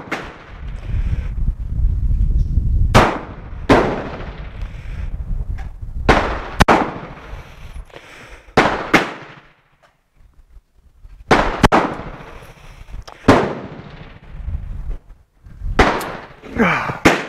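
Star BM 9mm Luger pistol being fired in slow, deliberate single shots: about a dozen sharp cracks, each with a short ringing tail, spaced irregularly one to three seconds apart.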